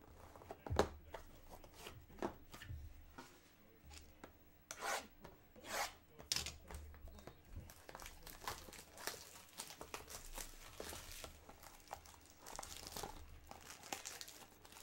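Clear plastic shrink wrap on a trading-card box being torn open and crinkled, with the cardboard box rubbing and knocking as it is handled. There is a sharp knock about a second in.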